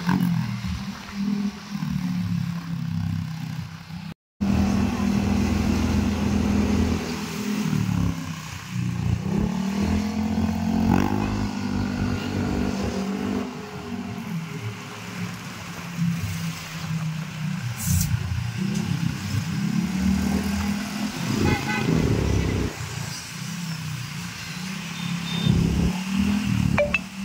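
A motor vehicle's engine running on the road, its pitch rising and falling again and again as it speeds up and slows down, with a brief dropout about four seconds in.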